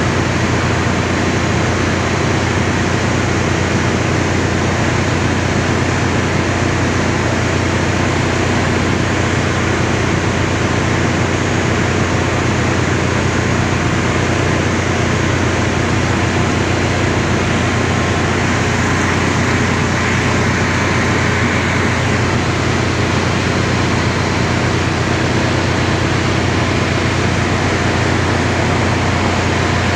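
Ship's engine-room machinery running: a steady, loud drone with a low hum and no breaks.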